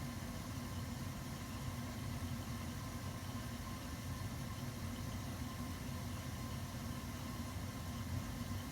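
Steam boiler running with its burner firing: a steady low hum with a faint higher tone over it.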